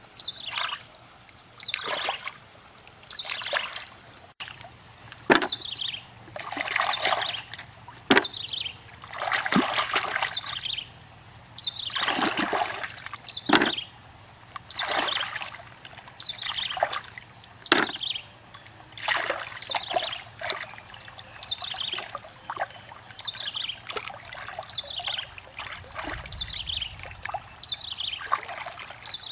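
Hands splashing and sloshing in shallow muddy water while groping along the bottom for freshwater shellfish: a run of short watery swishes, about one every second or so, with a few sharp clicks among them.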